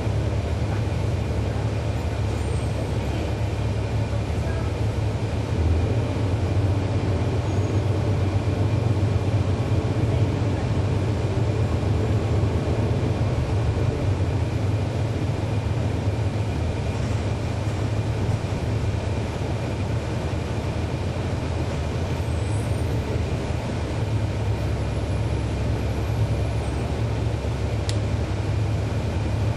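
Cummins ISL9 diesel engine of a 2011 NABI 40-SFW transit bus, heard from aboard the bus: a steady low rumble with no clear change in engine speed.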